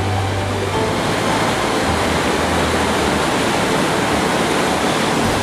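Glacial meltwater river rushing with a steady, loud roar of fast, turbulent water.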